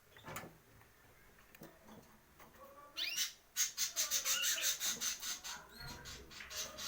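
Caged songbirds chirping: faint scattered chirps at first, then about halfway in a loud, fast run of repeated high chirps, several a second, with rising whistled notes.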